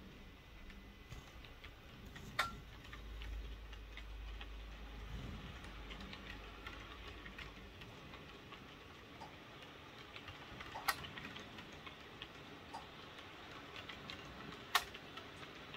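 Model train coaches rolling past on the track, their wheels ticking steadily over the rail joints, with a low rumble in the first few seconds. Three sharper clicks stand out: a few seconds in, about eleven seconds in, and near the end.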